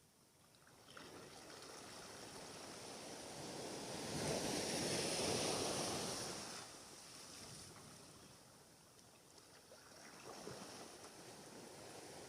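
Waves washing onto the shore: a rush of surf swells up about four seconds in and fades a couple of seconds later, with a smaller wash near the end.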